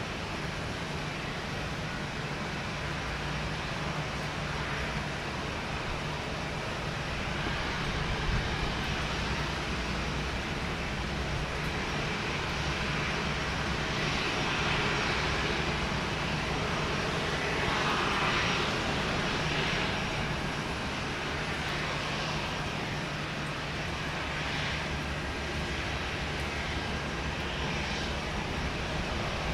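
Airport ambience of aircraft engines running on standby: a steady low hum under a broad rushing noise that swells louder about halfway through, then eases back.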